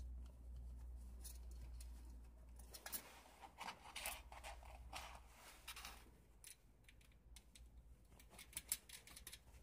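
Faint clicks and scratches of small metal screws and mounting studs being handled and fitted by hand through the holes of an LED plate and its metal mounting ring, over a faint low hum that fades out about halfway.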